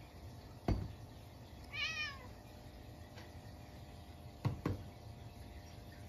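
A Munchkin cat gives one short meow about two seconds in, its pitch rising then falling. Sharp knocks, louder than the meow, come once just before it and twice in quick succession later.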